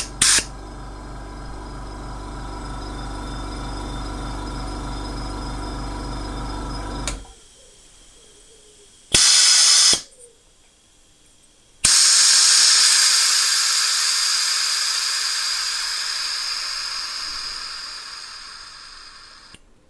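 A small air compressor's motor hums steadily, then stops after about seven seconds. A short blast of compressed-air hiss follows, and a couple of seconds later a longer hiss of air that slowly fades away, used for leak-testing lapped engine valves.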